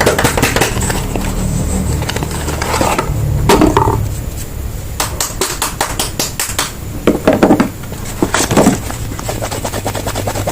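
Soap packaging being handled and opened in close-up: wrappers crinkling and rustling with dense crackles, with louder rustles around a third of the way in and again later on.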